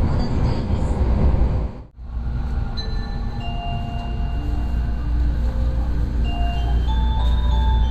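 Onboard announcement chime of a JR West-owned Kyushu Shinkansen train: a slow melody of clear, bell-like sustained notes playing over the steady low rumble of the train running. The sound drops out abruptly for a moment about two seconds in, just before the chime starts.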